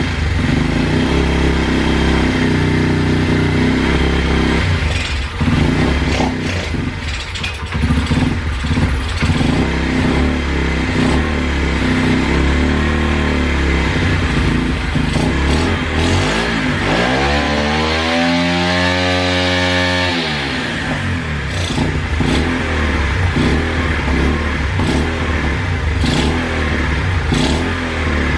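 Turbocharged Loncin single-cylinder four-stroke pit bike engine running and being revved with the throttle, uneven at first, then one long rev climbing about two-thirds through, held for a couple of seconds and dropping back to idle. No turbine whistle is heard over it, as the exhaust silencer muffles it.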